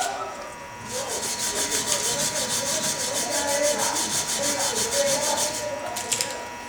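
A steel weld bead being scrubbed with a wire brush to clean off the slag after chipping. The strokes go rapidly back and forth, several a second, starting about a second in and stopping shortly before the end.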